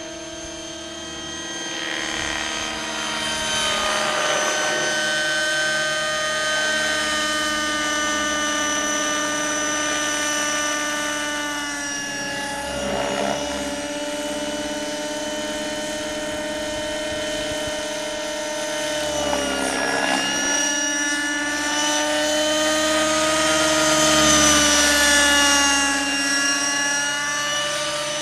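Align T-Rex 600N RC helicopter in flight: its OS 50 Hyper two-stroke nitro engine and rotors running with a steady, high-pitched whine. The pitch sags and recovers about halfway through and again about two-thirds in, then drops near the end. The sound gets louder after the first couple of seconds and is loudest a little before the end.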